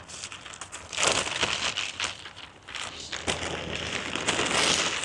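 Crinkling and rustling of a dragon kite's thin fabric sail and tail being handled and shaken out, in irregular crackly bursts that are louder about a second in and again near the end.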